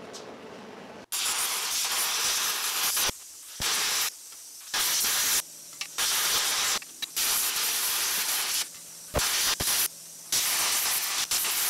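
Handheld plasma cutter cutting steel plate: a loud hiss of the arc and air jet in on-off bursts, from half a second to two seconds long with short gaps, starting about a second in. Before that, the propane burners give a soft steady hiss.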